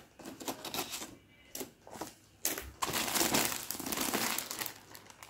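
Plastic craft stencil sheets and their packaging crinkling and rustling as they are handled and leafed through. Short scattered rustles at first, then a longer, louder spell of steady crinkling from about halfway that stops shortly before the end.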